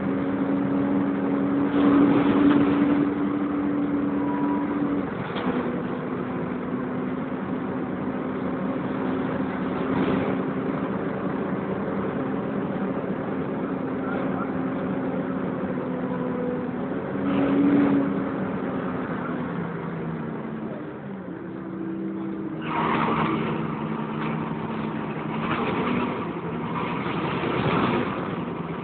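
A Volvo B10BLE bus driving, heard from inside: its engine and driveline give steady tones that step in pitch a few times as it changes gear. A tyre-like screech comes from the cooling fan area.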